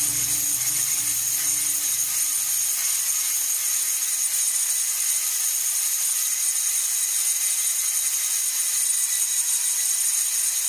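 Angle grinder on a homemade wood copy lathe running steadily, its abrasive disc grinding a turning wooden block: a steady high whine over an even hiss.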